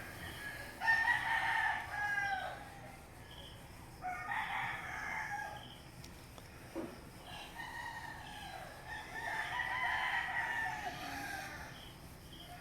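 Roosters crowing at dawn, about four long crows one after another, the loudest about a second in.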